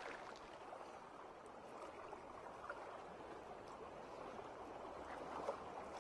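Faint, steady water sound effect of bubbling and fizzing, like air streaming up through water, laid under an underwater logo animation.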